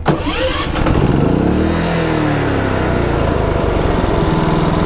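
Westinghouse iGen4500DF dual-fuel inverter generator, running on propane, started by remote: after a click its engine catches about a second in, rises in pitch, drops back, and settles into steady running.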